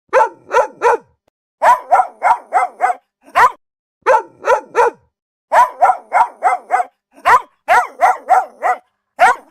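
A dog barking: some two dozen sharp barks in quick runs of three to five, with single barks between.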